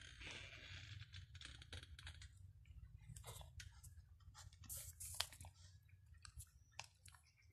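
Two cats, a tortoiseshell and a calico, chewing scraps of food off the ground: faint, irregular crunching clicks, one louder snap about five seconds in, over a low rumble.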